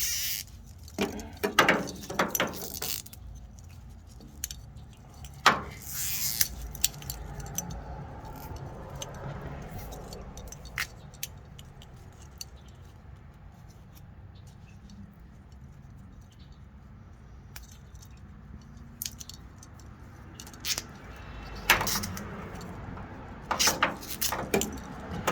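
Hands working on a vehicle wiring harness: scattered clicks, clinks and rustles of wires and small metal tools being handled, busiest in the first few seconds and again near the end, with a quieter stretch in between over a faint low hum.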